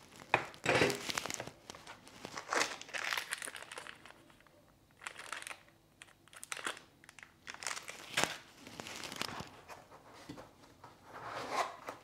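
Small zip-lock plastic bag of screws and parts crinkling as it is handled, in several bursts of rustling, with a sharp knock about half a second in.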